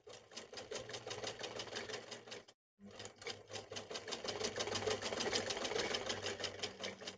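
Sewing machine stitching a seam: a fast, even rattle of the needle over a steady low hum. It stops briefly about two and a half seconds in, then runs again.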